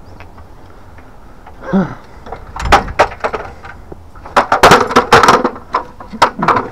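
A run of sharp knocks and clatters, as from metal gear being handled and climbed on: loose, irregular strikes, thickest a little past halfway and again near the end.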